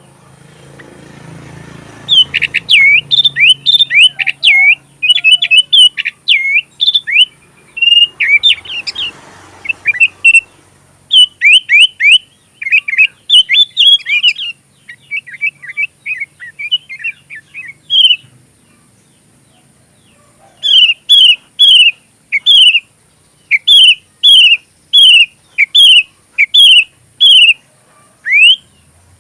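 Sooty-headed bulbul singing a loud, fast run of sweeping whistled notes, its song filled in with learned oriental magpie-robin phrases. After a short pause near the middle it repeats one note over and over, about one and a half a second.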